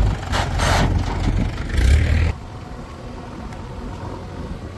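Heavy machine's diesel engine running, with two loud bursts of hissing noise over the first two seconds. The sound drops suddenly just over two seconds in to a quieter, steady engine hum.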